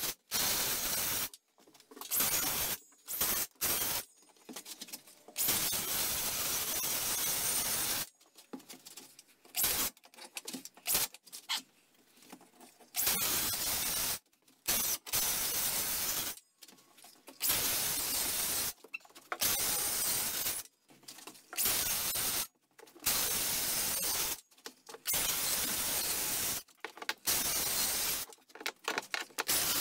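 Cordless circular saw cutting through a mobile home's subfloor, in a string of short runs of a second or two each with abrupt breaks between them.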